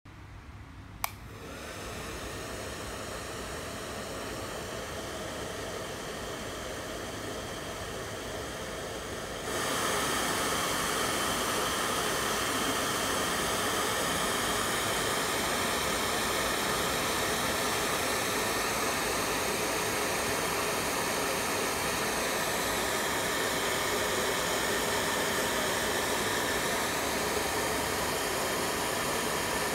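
The small motor of a homemade egg-and-cardboard model helicopter spinning its cardboard rotor: a single click about a second in, then a steady whirring hum that steps up louder about ten seconds in and holds there.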